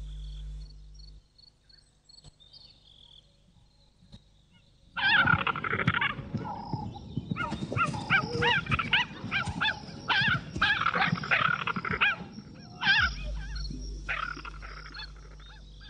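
A spotted hyena and cheetahs clashing. About five seconds in, a loud burst of growls and snarls starts, with many short yelping calls that rise and fall in pitch. It goes on for about eight seconds, then breaks out again briefly near the end.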